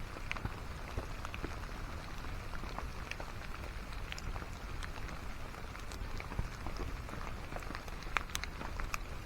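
Steady rain falling, with scattered sharp drops ticking on a surface close by.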